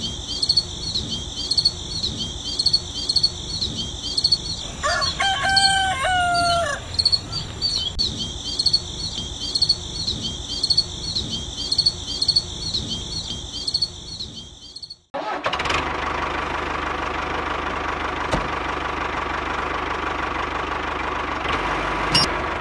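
A rooster crowing once, about five seconds in, over a rapid, regular high chirping. After about fifteen seconds this cuts off suddenly and gives way to a steady hum.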